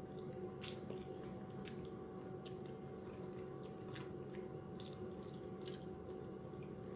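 Mouth sounds of eating sautéed catfish and brown rice: soft chewing with scattered small clicks.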